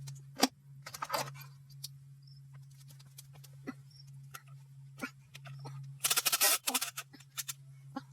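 Scattered metallic clicks and clinks of hand tools and parts on an engine being stripped down, with a burst of rapid clicking about six seconds in, over a steady low hum.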